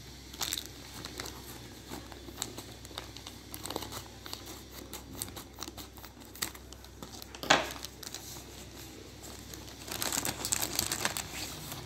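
Plastic courier mailer bag crinkling and tearing as it is handled and opened by hand: scattered small crackles, one sharp loud crackle about seven and a half seconds in, then dense crinkling near the end.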